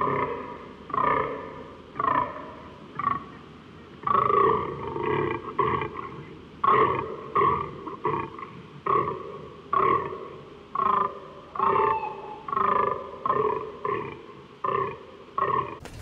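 Fallow deer buck groaning over and over, a short deep call about once a second. This is the rutting call of a fallow buck.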